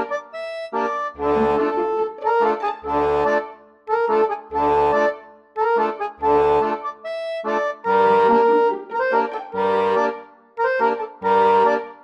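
Background music: a melody of held notes over a bass note that sounds about every second and a half.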